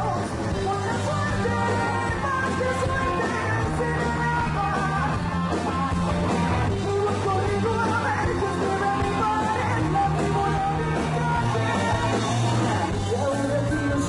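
Live rock band playing: a woman singing over distorted electric guitars, bass and drums.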